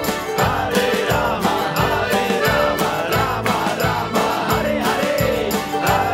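Outro music with a steady beat and a melody line.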